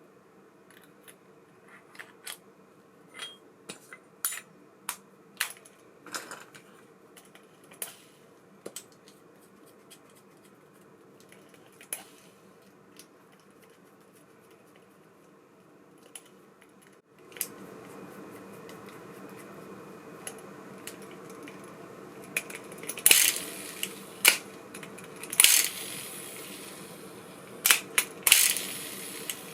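Small metal parts of an ABU Ambassadeur 5500C baitcasting reel clicking and clinking as they are handled and set down, in scattered single clicks. About seventeen seconds in a steady hum starts underneath, and the clinks near the end are louder.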